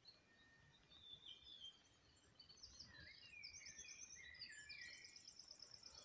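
Songbirds singing: a busy mix of quick high chirps and fast repeated trills that grows louder and fuller about halfway through, over a faint low rumble.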